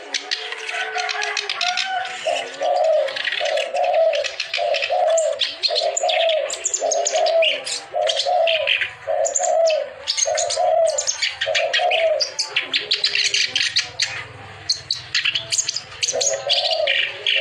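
Kerak basi, a reed warbler, singing a fast, harsh chattering song of high notes. Underneath runs a low, arched note repeated about once a second, which stops for a few seconds and comes back near the end.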